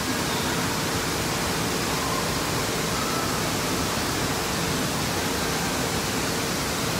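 Steady rush of churning water in an indoor water park's current channel, an even unbroken noise with a faint steady hum beneath it.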